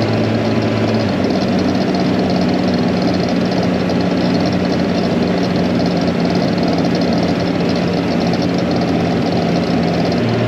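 Farm tractor engine running steadily while the tractor is under way; its note shifts about a second in and shifts back near the end.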